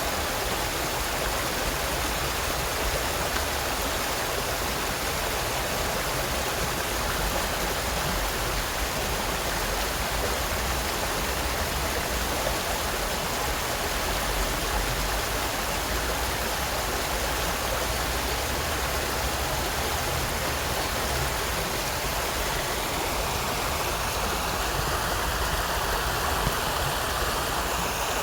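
Stream water flowing steadily over rocks, a continuous rushing and splashing that grows a little stronger near the end.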